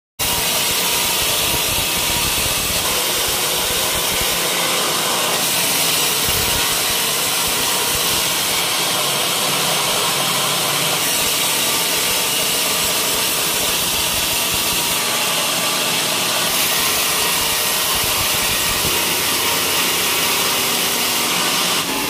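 Band sawmill running steadily, its blade cutting lengthwise through a teak log.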